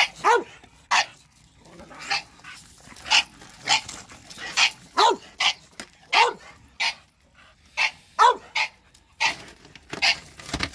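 English bulldog barking over and over at a shop vacuum: about fifteen short, sharp barks, each falling in pitch, coming every half second to a second.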